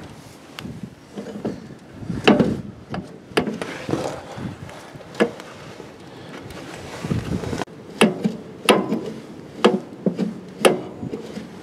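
A series of irregular knocks and clunks, some sharp, spaced about a second apart and bunched in the second half.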